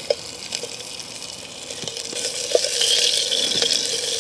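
Raw sausages sizzling in hot olive oil in a small billy pot over a wood fire, the sizzle growing louder about halfway through, with a few soft pops.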